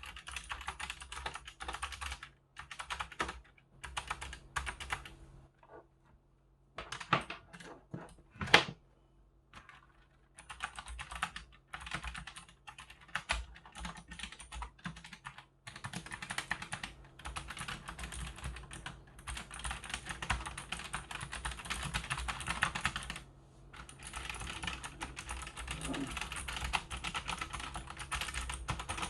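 Typing on a CJ Entus Genesis II mechanical keyboard with Kailh optical switches: crisp, lively key clacks. Short runs of keystrokes with pauses come first, then steady fast typing from about halfway, with one brief break.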